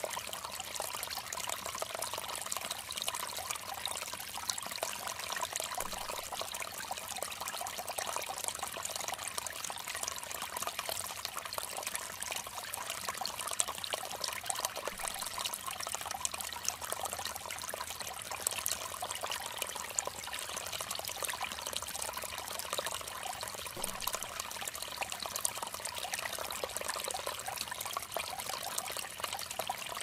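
Steady trickling, splashing water: a continuous rush dense with fine drop sounds, even throughout.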